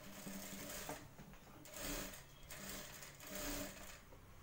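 Industrial sewing machine stitching a half-inch seam through blouse fabric, its motor starting and stopping in short runs.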